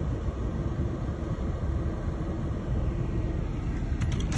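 Steady low rumble of a car idling, heard from inside the cabin, with a faint steady hum and a few light clicks near the end.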